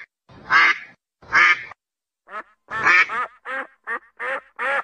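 Mallard ducks quacking: three loud, harsh quacks in the first second and a half, a short pause, then a quick run of quacks at about three a second.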